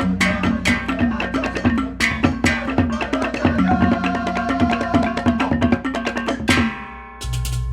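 Baleganjur, Balinese gamelan processional music: fast, dense strokes of cymbals and drums over ringing gong tones. It breaks off with a fading ring near the end, and a new section with a steady low pulse begins just before the end.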